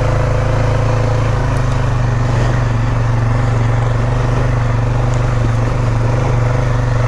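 Polaris Sportsman 570 ATV's single-cylinder engine running at a steady pace while riding, a constant hum that holds one pitch throughout.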